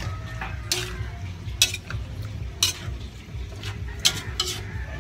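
A metal utensil stirring and tossing vegetables and meat in a large aluminium wok, scraping and clinking sharply against the pan about once a second, over a steady low hum.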